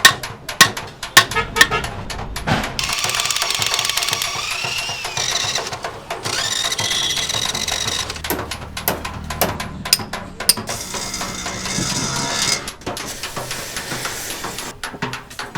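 Scrap-shop metalwork: a string of sharp metal knocks and clanks, then from about three seconds in a long stretch of harsh, high-pitched metal screeching that stops near the end, where the knocks return.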